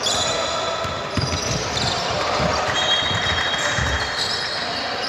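Basketball bouncing on the court during play, irregular thumps, with several short high squeaks from players' shoes on the floor.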